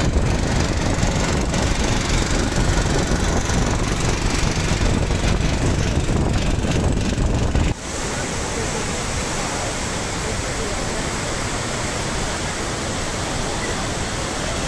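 A motor engine running with wind rumble while driving alongside a tractor-drawn trailer. After a sudden cut about eight seconds in, it gives way to the steady, even rush of a large waterfall.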